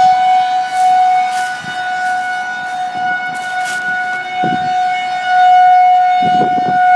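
Federal Signal 2001-130 outdoor warning siren sounding its steady alert tone, a single held pitch. Its loudness rises and falls as the rotating head sweeps past, swelling again about five and a half seconds in.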